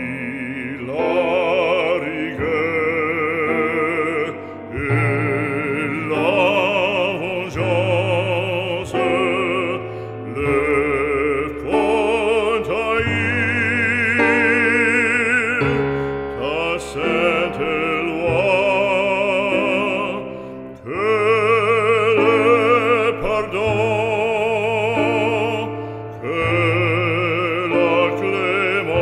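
Background music: a classical solo voice singing in operatic style with a wide vibrato, over sustained low accompaniment.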